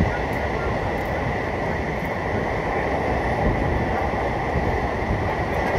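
Indian Railways train running along the track, heard from aboard a coach: a steady rumble of wheels on rails with a thin, steady high tone over it.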